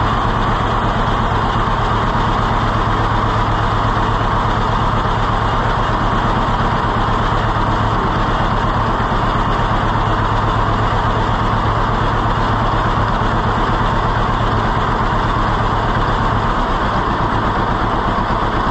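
John Deere B's two-cylinder engine idling steadily at a low, even beat after its rebuilt carburetor has been adjusted.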